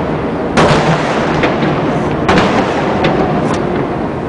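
Fireworks shells bursting in a large display: two big booms about a second and a half apart, each trailing off in a long rolling echo, with smaller cracks in between over a steady low rumble.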